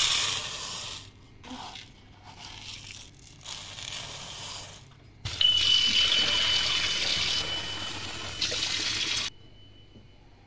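Dry rice grains poured into a metal pot with a brief hiss. Then water rushes into the pot of rice to wash it, with a thin steady high whistle through the rush. The water stops abruptly about nine seconds in.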